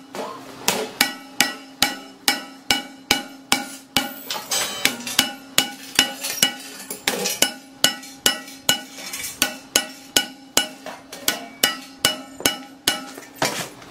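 Repeated hand-hammer blows on a bronze cymbal, about two or three a second, each with a short metallic ring. The cymbal was re-annealed and left to cool without quenching, so it cracks and breaks apart under the blows, shattering like glass.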